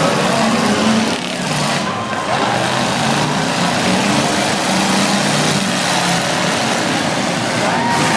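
Several demolition derby cars' engines running and revving together, a loud, steady, noisy din.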